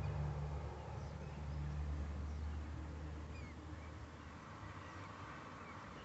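Scattered faint bird chirps over a low, steady hum that fades after about four seconds.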